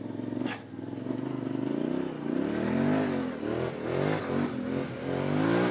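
Yamaha Ténéré 700's parallel-twin engine revving under load on a steep uphill climb, its pitch rising and falling as the throttle is worked.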